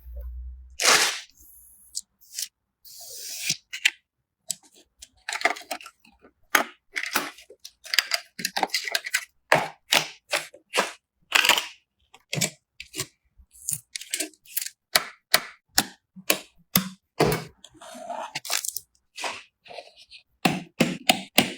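Computer parts being handled and fitted together: a quick series of separate clicks, snaps and knocks, about one or two a second, with silent gaps between them.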